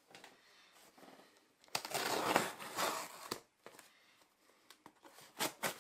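Cardboard shipping parcel being handled and opened. About two seconds in there is a stretch of rustling and tearing of the packaging lasting over a second, then a few short clicks and taps near the end.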